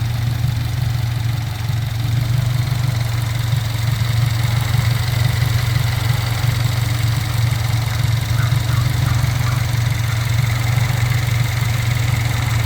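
2022 Subaru WRX's 2.4-litre turbocharged flat-four engine idling steadily, still running on its factory-fill oil at 3,000 miles.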